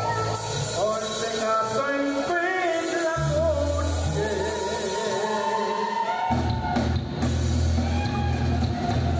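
Live band playing an upbeat tune on saxophone, accordion, electric bass, guitar and drum kit. The low end drops out briefly about two and a half seconds in, then comes back.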